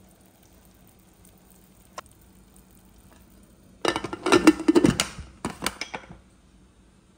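Aluminium pressure cooker lid being set on the pot and turned shut: a burst of metal-on-metal scraping and clanking about four seconds in, followed by a few lighter clicks. There is one sharp click about two seconds in.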